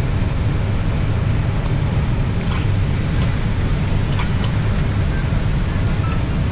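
Steady low rumble of a moving vehicle, with a few faint short clicks and brief beeps over it.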